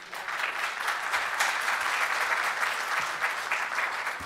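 Audience applauding: a steady patter of many hands clapping that begins to die down near the end.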